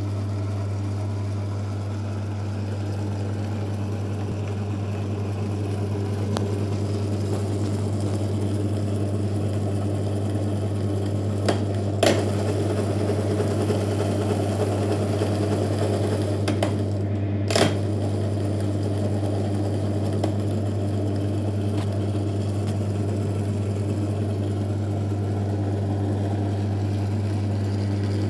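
Small Rollo Elf lathe running steadily, driven through a Sturmey-Archer three-speed hub gear with a gear-driven leadscrew: a steady motor hum with gear whir. Several sharp clicks come around the middle.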